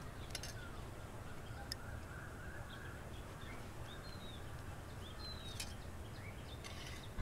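Quiet ambience with birds chirping now and then in the background, over a low steady hum, and a few light clicks.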